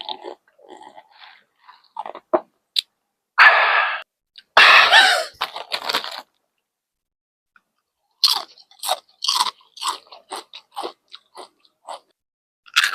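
Close-miked eating of a spicy Philly cheesesteak sandwich: two long, loud bites around three and a half and five seconds in, then after a pause a quick run of short chewing clicks.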